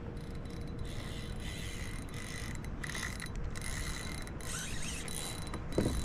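A fishing reel working against a hooked snook: a mechanical whirring of its gears and drag that comes and goes in spells. A louder low knock comes right at the end.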